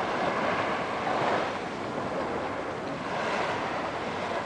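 Calm sea water lapping and sloshing right at the microphone, a steady rushing noise that swells gently about a second in and again around three seconds in, with some wind on the microphone.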